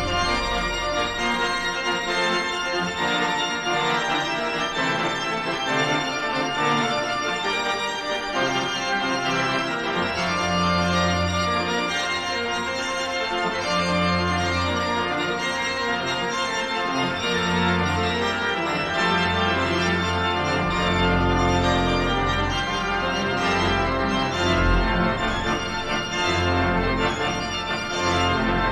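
Background music led by an organ with sustained chords and bass notes.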